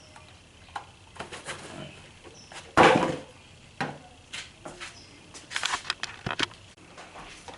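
Clicks and knocks of hard lock parts being handled: one louder clunk about three seconds in, then a run of quick clicks and taps a couple of seconds later.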